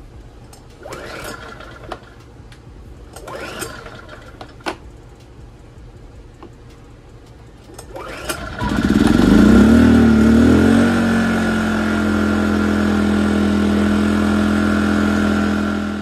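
A-iPower SUA2000i inverter generator's small four-stroke engine being pull-started. Two pulls of the recoil starter don't catch; on a third pull about eight seconds in it fires, revs up and settles into a steady, smooth run, its clogged carburetor main jet now cleaned.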